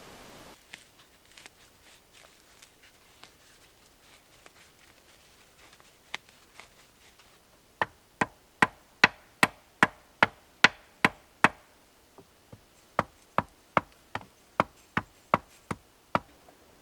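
A tool striking wooden stakes hard and repeatedly, about two and a half blows a second, in two runs of about ten strikes with a short pause between, after a few seconds of faint light knocks and handling of wood. The work is preparing or driving stakes for a shelter wall.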